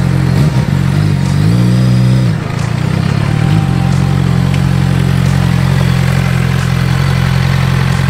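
Sport motorcycle engine running as the bike rolls up at low speed: a steady low engine drone, with the revs rising for about a second and dropping away about two seconds in, then a short throttle blip a second later.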